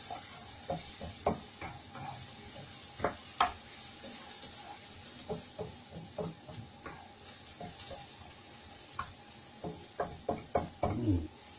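Wooden spatula stirring in a wok, knocking and scraping against the pan at an irregular pace, more busily near the end, over a faint sizzle of garlic and onion sautéing in oil.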